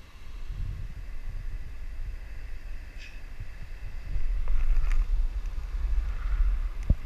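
Wind buffeting a handheld GoPro's microphone, a low rumble that grows louder about four seconds in, with a couple of short knocks near the end.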